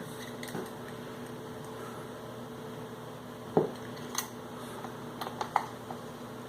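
A few scattered light clicks and knocks from a Ronco Pocket Fisherman's plastic reel and folding rod being handled and adjusted, over a steady faint hum.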